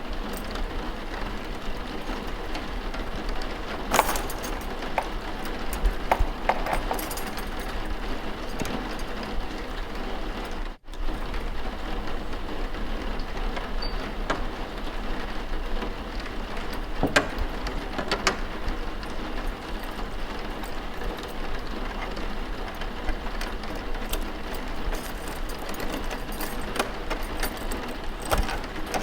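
Layered ambience of steady rain with scattered crackles and clicks, dropping out for a split second about eleven seconds in.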